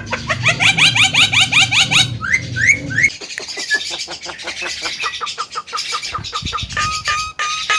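Javan myna (jalak kebo) singing a continuous varied run: a fast series of repeated chattering notes, a few rising whistled notes, a rapid clicking trill, then short even whistled notes near the end. A low steady hum underneath stops about three seconds in.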